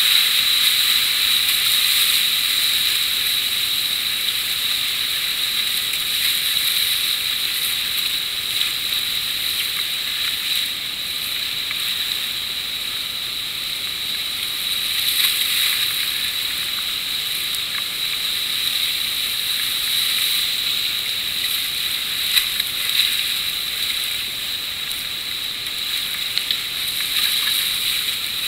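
Whitewater rapids rushing around a kayak, a steady loud hissing rush with almost no low rumble, broken by a few short splashes of paddle strokes.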